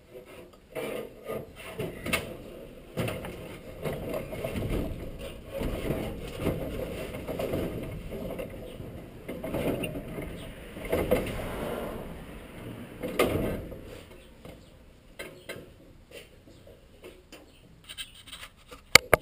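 A person clambering out of a dirt-track race car: irregular knocks, rubbing and creaks as his body brushes and presses against the seat, roll cage and bodywork. It dies down after about fourteen seconds, and a couple of sharp clicks come near the end.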